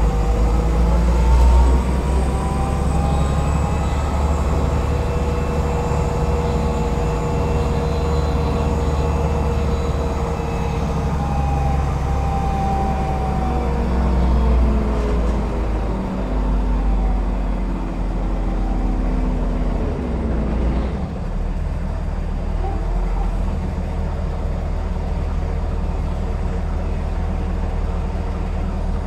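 LAZ A183D1 city bus running under way: a steady low engine rumble with a whine from the drivetrain that climbs in pitch over the first few seconds, holds, then falls away until about twenty seconds in as the bus slows, and climbs again a couple of seconds later as it picks up speed.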